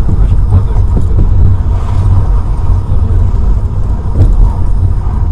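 Car engine and road noise, a steady low rumble.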